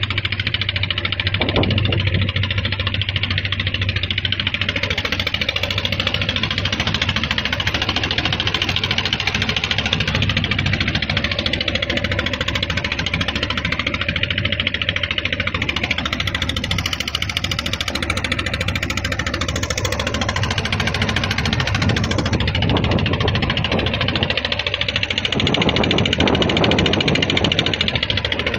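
Wooden motorboat's engine running steadily at an even speed.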